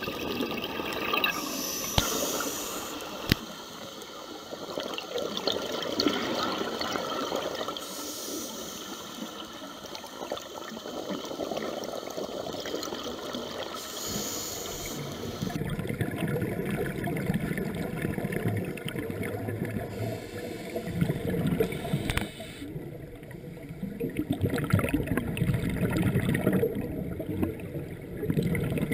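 Scuba diver breathing through a regulator, heard underwater: hissing inhalations alternating with bubbling exhalations, swelling and fading every few seconds. Two sharp clicks sound about two and three seconds in.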